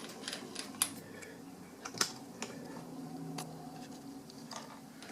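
Light metallic clicks and taps as a quick-change tool post is handled, turned and seated on its stud on a lathe's compound, a few separate clicks spread over a few seconds.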